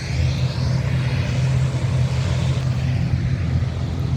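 Road vehicle running: a steady low engine hum with road noise.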